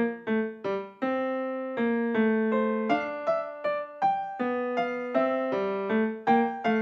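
Background music on a piano-like keyboard: a simple melody of separate notes, about two to three a second.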